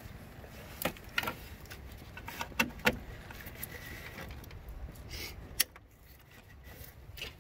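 A ratcheting wrench working bolts on a Toyota ABS actuator: a handful of sharp, scattered metallic clicks and clinks over a faint low rumble, the loudest one about five and a half seconds in.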